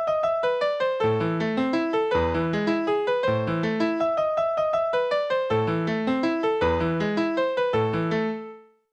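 Kyocera SE44 Slider ringtone playing: a polyphonic melody of quick, evenly paced notes in a piano-like keyboard voice over a bass line, fading out near the end.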